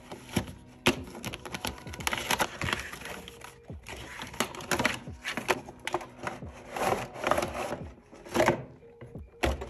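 Cardboard headphone box being unpacked by hand: the carton slid out of its paper sleeve and the flap opened, with scraping, rustling and small clicks, then the clear plastic clamshell tray crinkling as it is drawn out. A single thump near the end.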